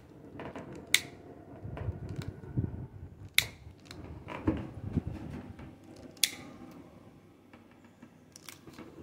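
Handling noise of a phone held close to the face, with hair brushing over it: low rubbing and rustling, broken by three sharp clicks a few seconds apart.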